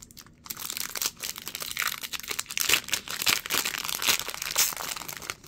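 Foil wrapper of a Topps Chrome baseball card pack being torn open and crinkled by hand, a dense run of crackles that starts about half a second in.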